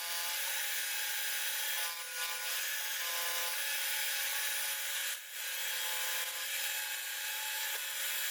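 A milling cutter cutting bolt-head recesses into a metal camshaft bearing cap: a steady cutting hiss over a constant machine whine, dipping briefly twice.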